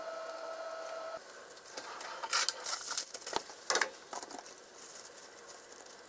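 Aluminium foil and cling film crinkling in quick irregular bursts as they are handled and spread out on the counter. A faint steady tone is heard for about the first second.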